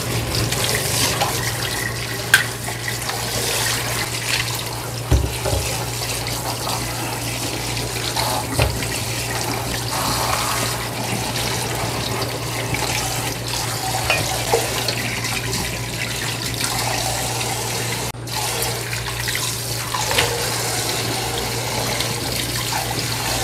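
Kitchen tap running steadily into a stainless steel bowl of leafy greens in a sink, with hands swishing and rubbing the leaves in the water. A steady low hum lies underneath, and there are a few soft thumps.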